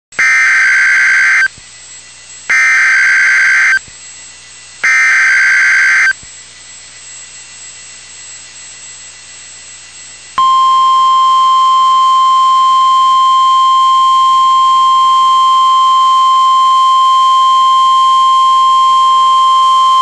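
NOAA Weather Radio Emergency Alert System signal announcing a tornado watch. It opens with three short buzzy bursts of SAME digital header data, each about a second and a half long with a short pause between. A few seconds of low radio hiss follow, then from about halfway through the steady single-pitch 1050 Hz weather radio warning alarm tone.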